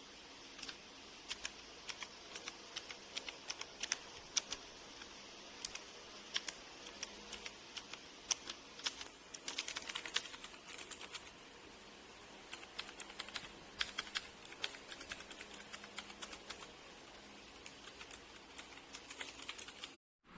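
HJK917 mechanical keyboard with blue clicky switches being typed on: uneven separate keystrokes, with a quick run of fast typing about ten seconds in.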